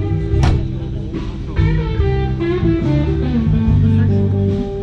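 Music with electric guitar over a bass line, moving from note to note, with a sharp hit about half a second in.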